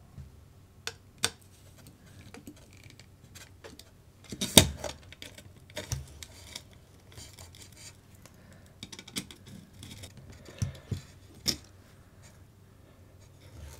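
Small clicks and scrapes of hand tools and small metal parts as screws and nuts are tightened on an RC car chassis's battery mount. The clicks come irregularly, the loudest about four and a half seconds in.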